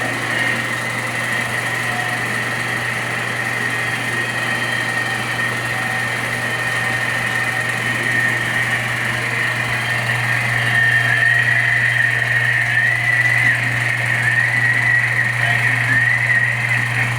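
Singer Graflex 1115A 16 mm film projector running, a steady mechanical running noise from its motor and film transport. A steady high tone runs over it and starts to waver about eleven seconds in.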